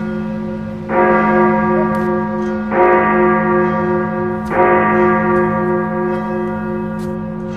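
A bell struck three times, a little under two seconds apart, each stroke ringing on and fading slowly over a steady low hum.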